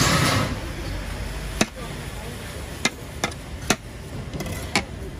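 Large chef's knife cutting the rind off a netted melon. A rasping slice comes at the start, followed by five sharp knocks as the blade meets the plastic cutting board.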